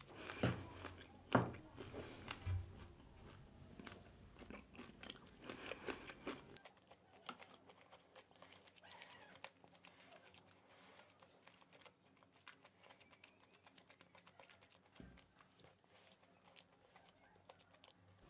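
Faint close-miked chewing and mouth clicks, with a few louder, sharper bites in the first few seconds.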